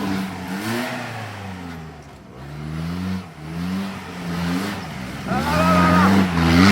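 Off-road 4x4's engine revving repeatedly, its pitch rising and falling with each blip of the throttle. A higher-pitched wavering sound rises over it about five seconds in.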